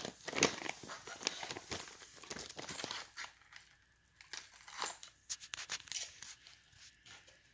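Crinkling and rustling of gift packaging, with many small clicks and taps from handling, busiest in the first few seconds and sparser after.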